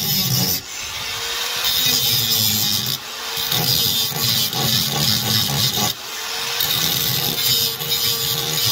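Angle grinder grinding down weld beads on sheet-steel floor panel, a harsh continuous grinding over the motor's whine. The grinding breaks off briefly three times, roughly every three seconds.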